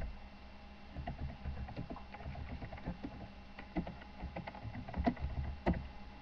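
A sharp knock as a hand handles the webcam, then irregular clicks and knocks with low thumps from hands handling things close to the microphone.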